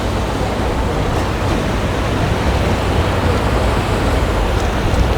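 Steady rushing noise of wind and rough water, with a low rumble of wind buffeting the microphone.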